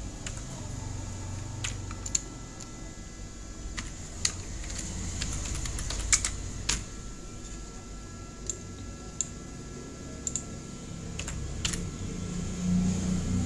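Computer keyboard keystrokes: about a dozen separate taps at an uneven, unhurried pace with short pauses between them.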